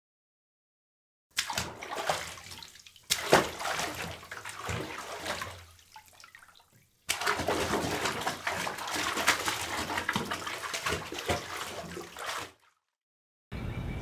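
Water splashing and sloshing, as in a bathtub, in two stretches of several seconds with a short break between.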